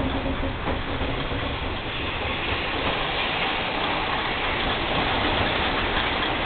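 Cabin noise of a KiHa 22 diesel railcar under way, heard from inside: its DMH17C eight-cylinder diesel engine running together with wheel and rail noise. A steady hum fades about two seconds in as the rushing running noise grows louder.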